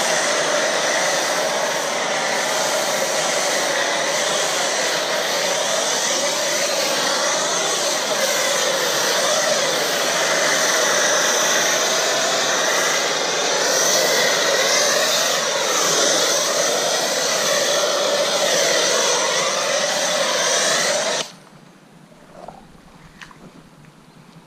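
Kranzle 1122TST electric pressure washer spraying steadily through a foam cannon, a loud, even hiss of the water jet. About three-quarters of the way through the trigger is released and the spray stops abruptly.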